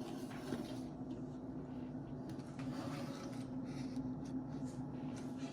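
Quiet room tone with a steady low hum and a few faint rustles and small knocks.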